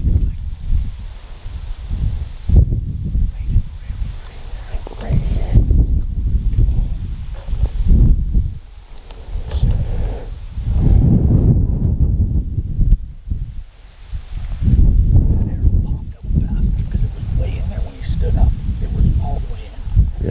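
A cricket chirping steadily, about three chirps a second, over a loud, uneven low rumble.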